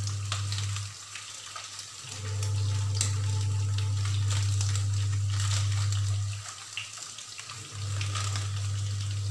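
Potato chunks frying in hot ghee in a kadai, a faint sizzle with scattered crackles. Under it a steady low hum, the loudest sound, drops away twice for about a second.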